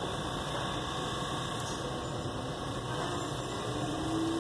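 GE VCR fast-forwarding a VHS tape: a steady mechanical whir, with a thin motor tone that rises in pitch over the last second or so as the reels speed up.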